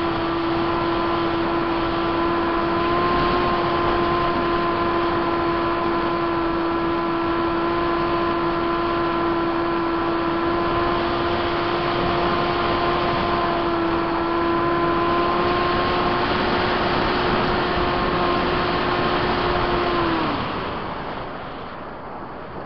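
Multiplex Easy Star's Permax 400 electric motor driving its pusher propeller, a steady whine over rushing air, heard from a camera mounted on the plane. Near the end the whine falls in pitch and stops as the motor is cut, leaving only wind rushing past.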